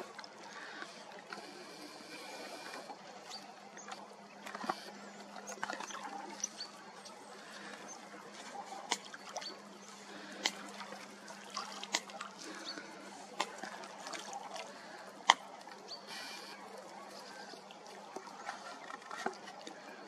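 Lake water lapping and trickling, with scattered sharp clicks and a faint steady low hum.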